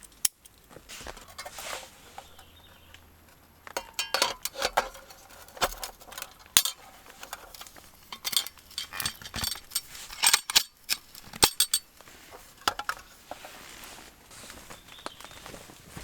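Metal camp cookware and utensils clinking and knocking against each other in a quick irregular series of sharp clinks, busiest in the middle of the stretch.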